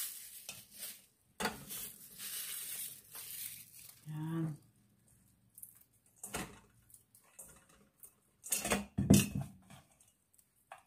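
Food-prep handling sounds: intermittent rustling and light clicks, then a louder knock and scrape against a stainless steel mixing bowl about nine seconds in as hands mix the crushed dried shrimp in it.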